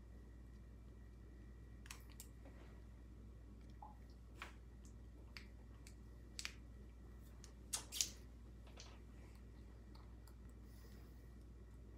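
Scattered small clicks and taps of chainsaw carburetor parts and a screwdriver being handled during reassembly, the sharpest pair about eight seconds in, over a low steady hum.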